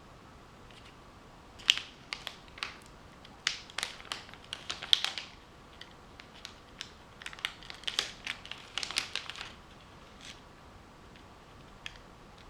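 Irregular small sharp clicks and crackles, coming in two clusters with scattered single ticks, like small tools and plastic or metal parts being handled.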